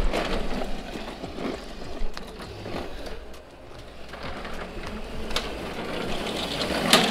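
Razor Crazy Cart electric drift cart, running on its freshly installed replacement motor, driving over asphalt: a steady whirring and wheel noise with a few sharp clicks. It dips in the middle and grows louder again as the cart comes back.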